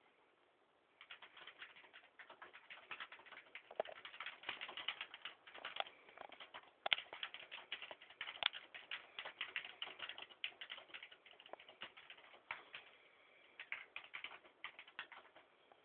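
Rapid, irregular clicking, many clicks a second, starting about a second in and thinning out near the end.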